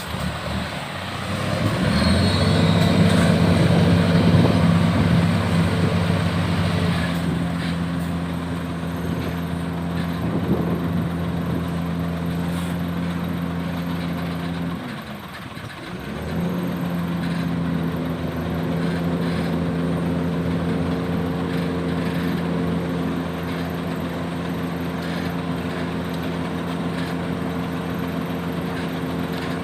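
Heavy diesel engine running at a steady speed, getting louder about two seconds in. It drops away briefly about halfway through and then picks up again.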